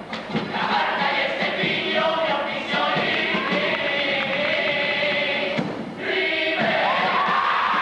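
Carnival comparsa chorus singing together, accompanied by strummed Spanish guitars and a bass drum, holding long notes through the closing phrase of the song. A short break comes about six seconds in, followed by a final long held note.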